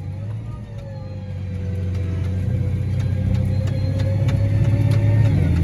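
Large engine running steadily with a low hum and a faint whine above it, growing louder over the seconds.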